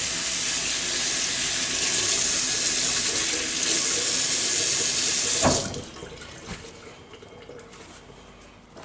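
Tap water running steadily into a sink as the whetstone is rinsed, then shut off abruptly about five and a half seconds in.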